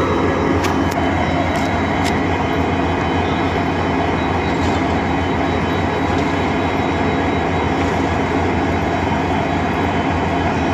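WDP4D diesel-electric locomotive's 16-cylinder two-stroke engine humming steadily, with a few light clicks in the first two seconds.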